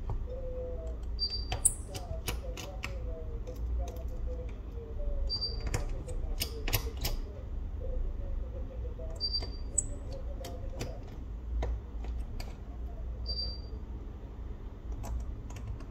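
Irregular light clicks and taps of small hand tools working on a smartphone during disassembly, over a steady low hum. A short high beep comes about every four seconds, four times.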